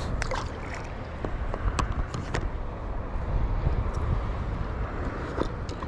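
Open-sea ambience: a steady low rumble with a few short, sharp clicks from fishing tackle being handled.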